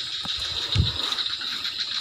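Crickets trilling steadily in a continuous high-pitched chorus, with a soft low thud a little under a second in.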